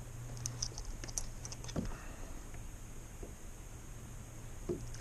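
Small, light clicks and two soft knocks, one about two seconds in and one near the end, as fishing gear is handled in a kayak.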